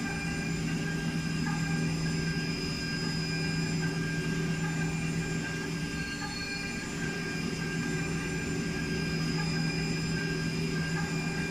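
High-speed CNC milling machine spindle running steadily while its end mill cuts a metal block under a coolant mist spray: a constant hum and whine over the cutting noise.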